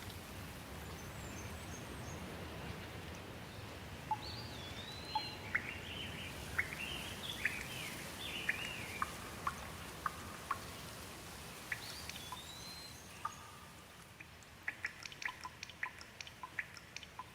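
Steady rain hiss with birds singing in rising and falling phrases. Near the end the rain fades and rapid small pops of crackling firewood take over.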